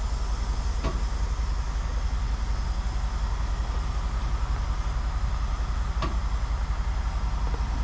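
Heavy diesel engine of a semi tow truck idling, a steady low rumble with fast even pulsing. Two faint clicks come through, about a second in and again about six seconds in.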